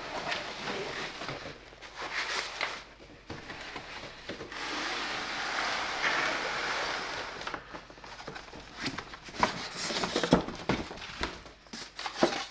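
Cardboard packing and foam inserts being handled while a box is unpacked: rustling and scraping, with a longer sliding scrape in the middle and a run of knocks and clatters near the end.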